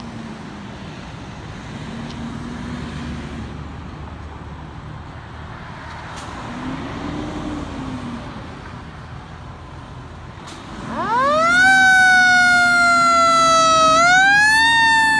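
Steady background rumble, then about eleven seconds in a fire truck's siren starts: it sweeps quickly up, wails slowly down, rises again and falls.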